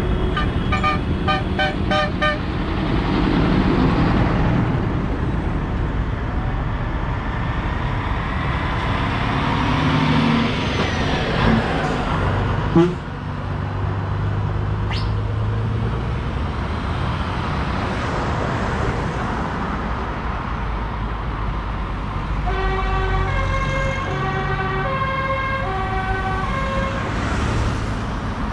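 Tractor engines running steadily in a convoy, with horns sounding over them: a quick series of short toots at the start, and near the end a horn playing longer notes that alternate between two pitches. One sharp knock about halfway through.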